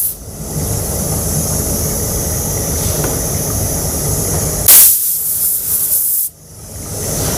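Compressed-air paint spray gun hissing steadily over a low, even hum. About five seconds in there is a brief, louder blast of air, and a second later the sound drops out suddenly before building back up.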